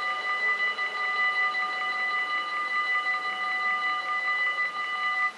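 Dutch AHOB level-crossing bells ringing fast and steadily while the barriers rise after the train has passed, then cutting off suddenly near the end as the barriers come up and the crossing reopens.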